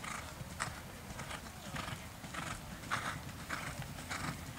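Thoroughbred mare cantering on sand arena footing: muffled hoofbeats coming in a stride rhythm of about one beat group every 0.6 seconds.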